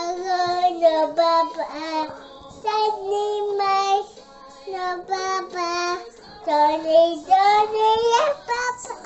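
A child's voice singing a nursery-style melody in short held notes, one after another.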